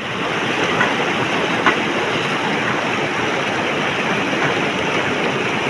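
A steady, loud rushing noise that starts and cuts off abruptly, with a couple of faint clicks in the first two seconds.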